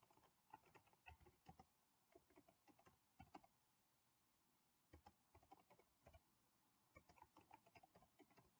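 Faint keystrokes on a computer keyboard, typed in short runs of clicks with a pause of about a second and a half in the middle.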